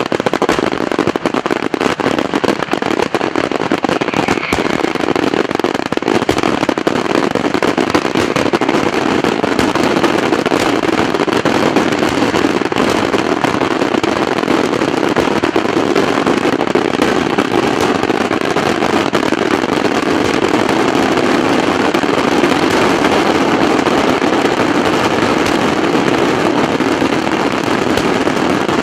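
Daytime fireworks: a continuous, dense barrage of bangs and crackling from bursting aerial shells and firecrackers, with no pauses.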